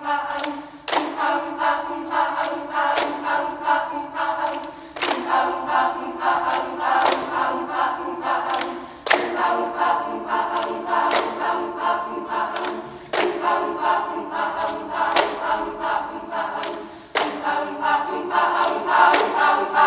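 A cappella choir of young women singing sustained chords that change about every four seconds, with sharp percussive hits over them roughly once a second.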